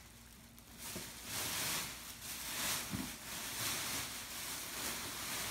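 Thin plastic wrapping rustling and crinkling in uneven swells as it is pulled off a compressed dog bed, starting about a second in.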